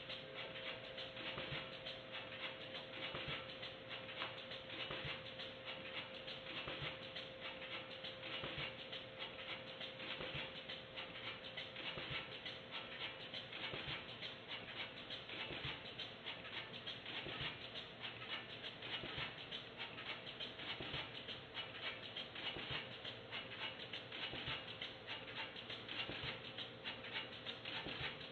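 Pouch-converting packaging machinery running, with a dense, fast, irregular clicking clatter over a steady tone.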